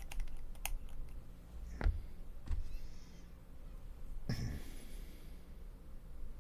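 Light clicks and a few soft knocks of plastic model parts being handled as a leg is fitted onto a miniature, with a short rustle about four seconds in.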